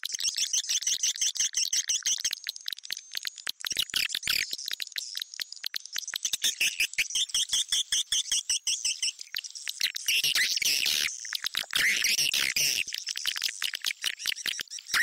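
Swiftlet call lure recording: dense, high-pitched chirping twitters laced with rapid trains of clicks, louder and busier about two-thirds of the way through. It is the kind of call track played from tweeters in a swiftlet house to attract swiftlets to roost and nest.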